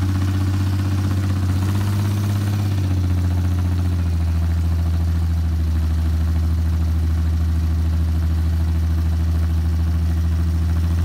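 Rock crawler's engine running at low, steady revs under load as the buggy crawls up a steep rock slab, the note shifting a couple of seconds in and then holding steady.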